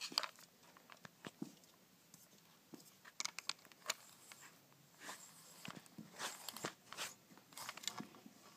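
Faint, irregular clicks and scratchy rustles of a kids' toy fishing pole being swung, with its rubber worm lure flicked across carpet. The sounds come in clusters, busiest in the second half.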